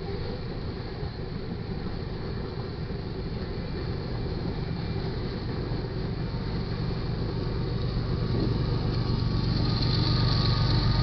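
Loaded covered hopper cars of a freight train rolling past with a steady rumble of wheels on rail. Near the end it grows louder as the rear distributed-power locomotive, a GE ES44AC diesel, draws near, its engine adding a low steady hum.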